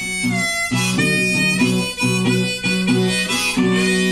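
Blues harmonica playing held notes over a resonator guitar strummed in a steady rhythm.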